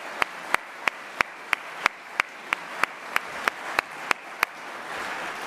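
Audience applauding, with loud, evenly spaced claps at about three a second standing out above the crowd until about four and a half seconds in.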